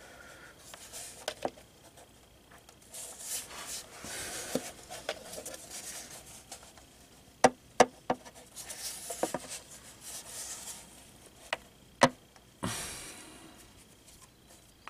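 New automatic-transmission filter being wiggled back and forth by hand to seat its neck in the transmission: soft rubbing and scraping, with a few sharp clicks, two of them close together a little past halfway and another about twelve seconds in.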